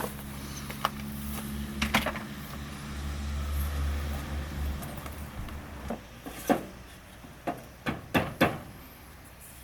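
A steady low mechanical hum that cuts out about six seconds in, with several sharp knocks and clicks around it.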